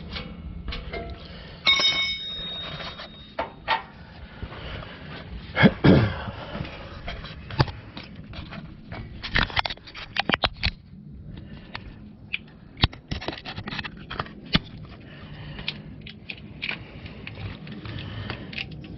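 Wrench and hand tools clicking and clanking on metal as new oxygen sensors are threaded into the exhaust and snugged down: a string of sharp irregular clicks with a few louder knocks, over a low steady hum.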